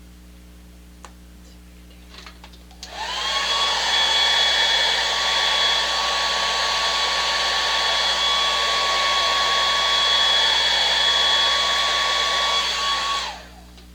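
Handheld electric blower switched on about three seconds in, its motor whine rising as it spins up, then running steadily with a rushing hiss for about ten seconds before it is switched off near the end and winds down.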